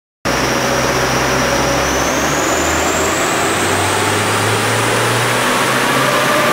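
Mitsubishi Lancer Evolution's turbocharged four-cylinder engine running under load on a chassis dyno, its revs climbing slowly and steadily as in a dyno pull, with a high whine rising along with it. The sound cuts in suddenly just after the start.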